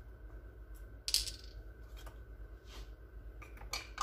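Light clinks of a teaspoon while banana extract is measured out: one sharp clink about a second in, and a few softer ones near the end.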